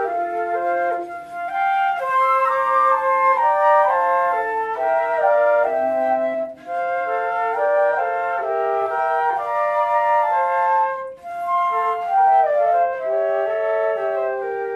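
Three concert flutes playing a melody together in harmony, with short breaks between phrases.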